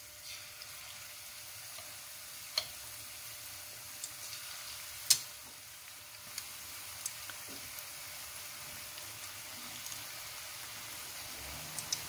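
Coated chicken pieces (karaage) deep-frying in shallow oil in a frying pan as more pieces are slipped in: a steady sizzle with scattered sharp pops and crackles, the loudest about five seconds in. The oil is too hot, at about 185 °C.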